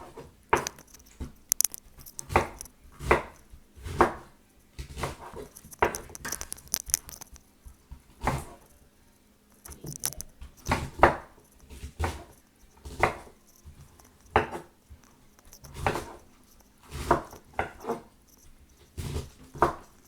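Knife slicing through a quarter of raw cabbage onto a cutting board, a series of separate crisp chops at an uneven pace of about one to two a second.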